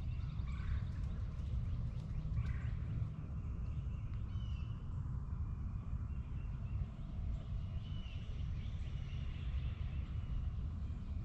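Outdoor farmyard ambience: a steady low rumble with a few short, faint bird chirps scattered through.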